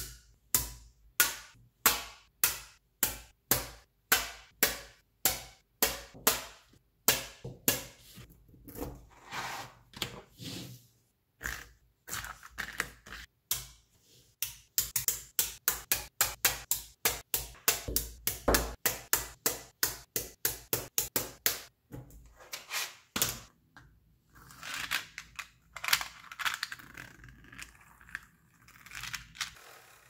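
Small neodymium magnetic balls clicking sharply as rows of them snap together and are pressed into long bars, about two clicks a second at first and faster runs of clicks midway. Near the end, a rougher scraping and rattling of balls shifting against each other.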